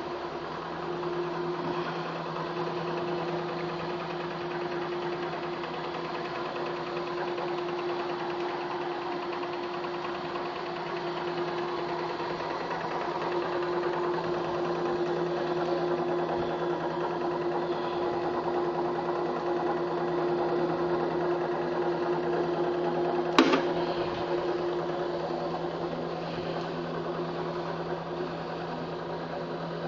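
Electric drive motor of a Bode rotilting welding positioner running with a steady whine over a lower hum. A single sharp click comes about 23 seconds in, after which the whine dies away and the low hum carries on.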